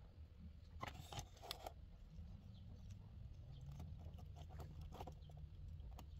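Faint small clicks and scrapes of a metal battery contact plate and spring being handled and pushed into the plastic battery compartment of a digital clock, with a quick cluster of clicks about a second in and lighter ticks later. A low steady hum runs underneath.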